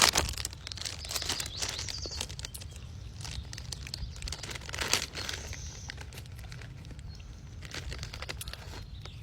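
Eating raw marinated crab: chewing and sucking in irregular bursts, loudest near the start and about five seconds in.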